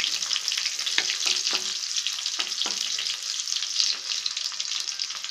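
Sliced garlic sizzling in hot oil in a metal kadai, with the scrape and tap of a wooden spatula against the pan as it is stirred, several times through the sound.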